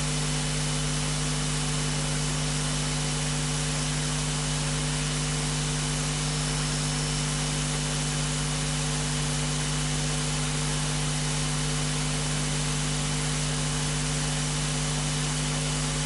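Steady electrical hum and hiss from the sound system, with no other sound; the level does not change.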